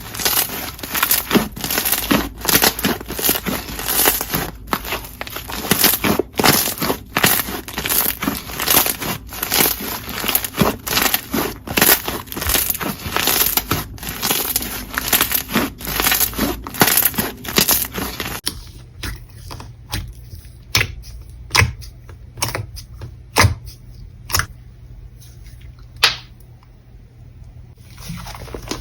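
Jelly slime being squished and pressed by hand, making dense wet crackling and popping clicks. About eighteen seconds in it turns quieter, with only a few single sharp pops now and then.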